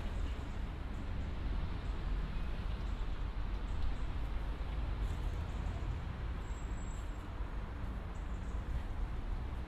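Steady outdoor street ambience: a low rumble with an even hiss, and a brief faint high whistle about seven seconds in.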